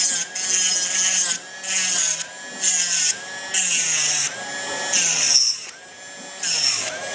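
Dremel 8050 Micro cordless rotary tool running at high speed and grinding down a PLA 3D print. Its whine sags each time the bit bears on the plastic, with a short burst of grinding noise on each of several passes.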